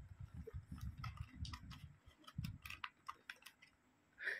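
Light, irregular clicks and taps of hard plastic toy parts being handled on a plastic folding toy house, over a dull low rumble of handling in the first couple of seconds.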